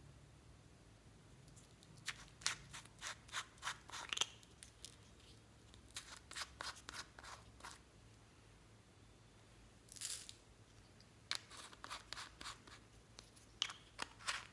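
Small plastic screw caps of a contact lens case being twisted and handled close up, making runs of quick sharp clicks. There is a short scrape about ten seconds in.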